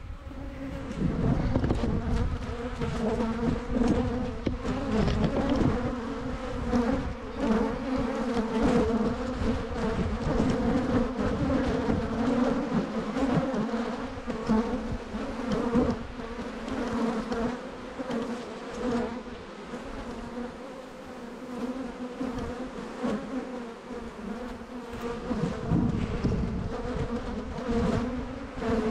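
Honeybees buzzing in a steady, dense drone at the front of a hive thickly covered with bees: a strong colony disturbed just after its hive boxes were reversed. Wind rumbles on the microphone through the first half.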